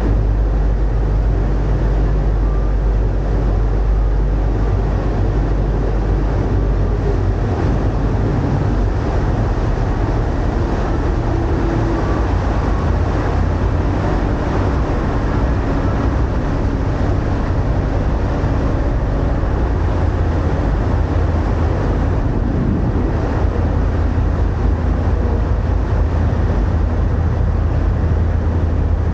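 Tour boat's engine running steadily under way, a low drone over the rushing wash of its wake churning the river water.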